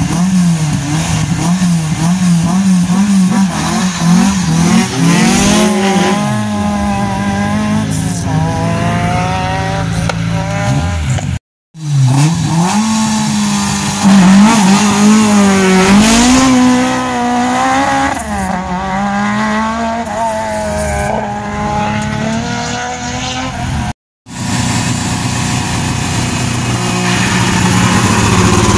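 Rally car engines, first a Renault Clio, then a Peugeot 306, then a Ford Fiesta, in three clips cut together. Each runs loud at the line, with the revs climbing and falling again and again.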